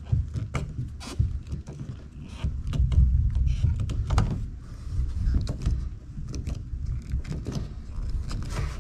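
A plastic float valve being screwed by hand into a bulkhead fitting on a polyethylene stock tank, giving many short clicks and knocks from the plastic parts and handling, over a steady low rumble.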